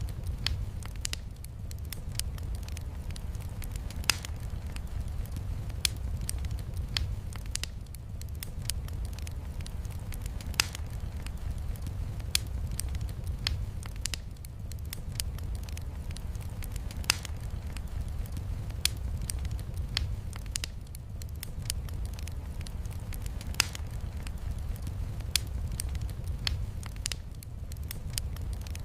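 Wood fire crackling in a fireplace: sharp, irregular pops and snaps, about one a second, over a steady low rumble of burning logs and rain.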